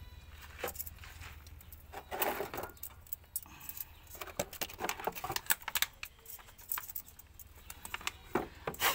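Loose steel valve springs and small valve-train parts for an Isuzu 6HE1 diesel cylinder head being handled, with irregular metallic clicks and clinks as they are picked up.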